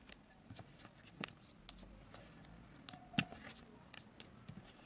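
A few light clicks and taps of hands and a tool working modelling dough on a table, as a piece of dough is pressed and rolled out thin.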